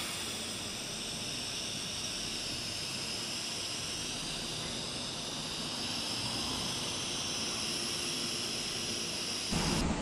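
TIG welding arc hissing steadily at a high pitch for about nine and a half seconds, then cutting off abruptly as the arc is broken.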